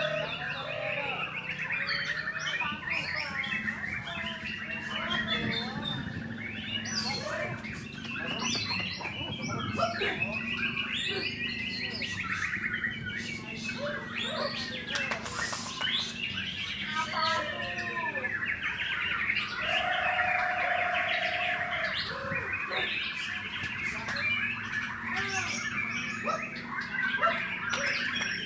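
White-rumped shama (murai batu) singing a long, varied song of rapid chirps, trills and whistled sweeps, in the fast 'tembakan' bursts that keepers prize. A steady low hum runs underneath.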